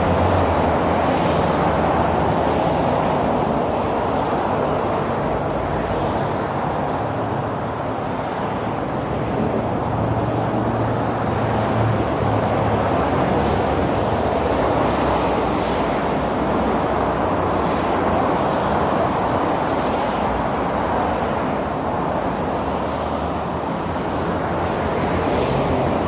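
Steady traffic noise from cars and taxis driving along a multi-lane expressway, swelling and easing gently as vehicles pass.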